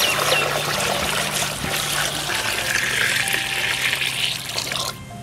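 Water being poured in a steady heavy stream into a large kadai on the fire; the pour stops abruptly near the end.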